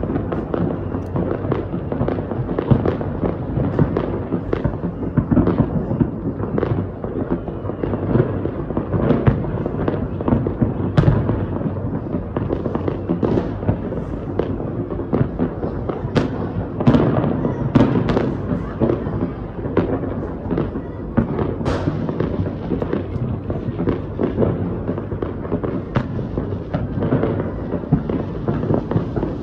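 Fireworks going off in a dense, continuous barrage of bangs and crackles over a steady low rumble, with louder sharp reports standing out every few seconds.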